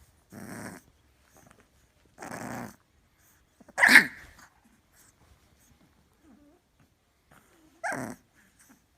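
A bulldog vocalizing: two short, rough growl-like noises in the first three seconds, a loud sharp bark about four seconds in, and a shorter bark near the end.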